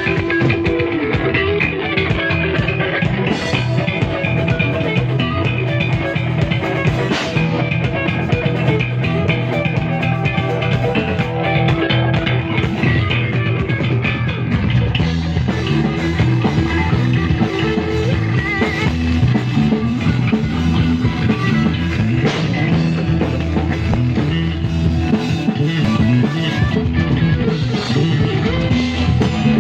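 Rock band playing live: electric guitar, bass and drum kit, loud and continuous.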